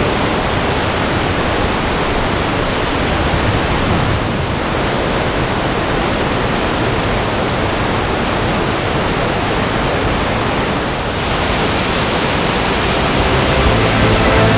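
The Tamina river rushing through its narrow rock gorge: a steady, loud white-water rush with no other sound over it.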